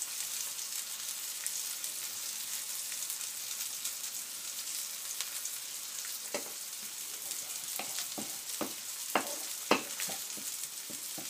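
Cod steak sizzling steadily in a hot, oiled grill pan. From about six seconds in, a wooden spoon stirs a cream sauce in the pan beside it, with a run of sharp knocks against the pan.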